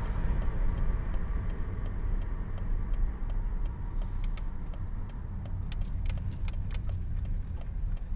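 Car driving, heard from inside the cabin: a steady low rumble of engine and road noise, with scattered light ticks and rattles, more of them in the second half.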